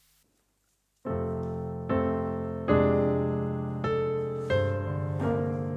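Piano playing a slow piece, coming in about a second in with chords struck roughly once a second, each ringing out before the next.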